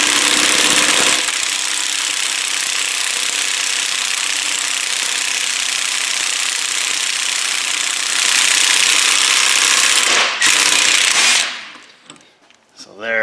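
Cordless 1/2-inch impact wrench hammering continuously on a puller's forcing screw to break a seized rear wheel bearing loose from its hub. It pauses briefly about ten seconds in, runs a second time, and stops near the end.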